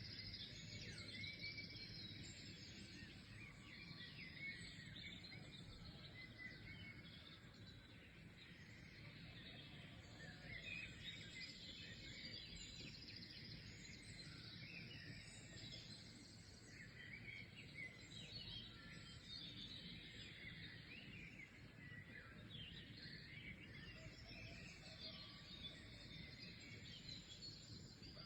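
A faint chorus of many songbirds chirping and trilling at once, calls overlapping without pause, over a low steady background hiss.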